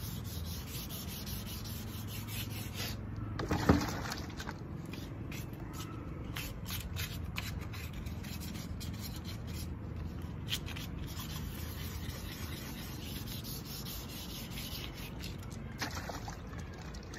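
Hand-sanding of the grey base coat on a motorcycle engine's cylinder fins and casing: a steady scratchy rubbing as the paint is rubbed down smooth. There is one louder knock about four seconds in.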